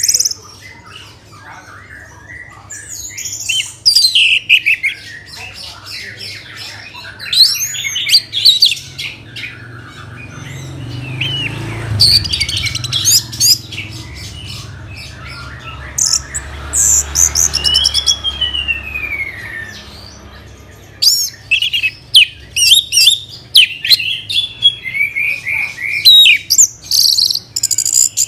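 Orange-headed thrush singing: a varied, rapid song of quick high chirps and slurred whistles rising and falling, delivered in bursts with short gaps. A low rumble sits under the song in the middle.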